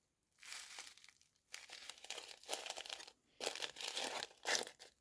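A sealed bag of parsley being handled, crinkling in three bursts with short pauses between.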